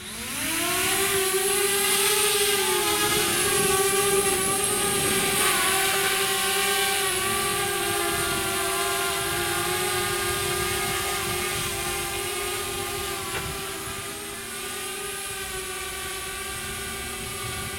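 Small quadcopter drone taking off: its motors spin up with a rising whine in the first second, then the propellers hold a steady high buzzing hum as it hovers and climbs. The hum slowly gets quieter in the second half.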